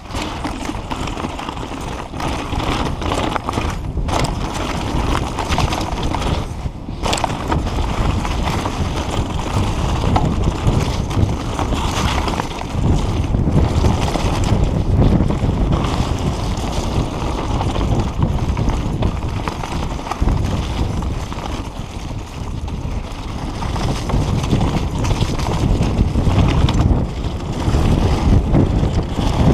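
Mountain bike rolling fast down a snowy, rocky singletrack: wind buffeting the bike-mounted camera's microphone over the rumble and rattle of tyres and frame on snow and stones.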